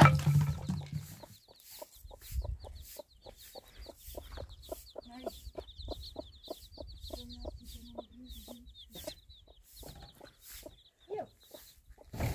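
A dull thump right at the start, the loudest sound, then a brood of chicks peeping in a rapid, high, continuous chorus while the mother hen clucks in low repeated notes. The peeping thins out near the end.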